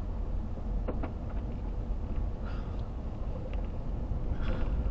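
A vehicle driving along: a steady low rumble of engine and road, with a couple of light clicks or rattles, about a second in and again past three seconds.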